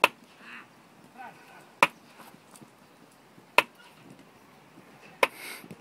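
Jugger timekeeper's drum struck in an even beat, four sharp strikes a little under two seconds apart, counting off the 'stones' of play. Faint shouts of the players between the strikes.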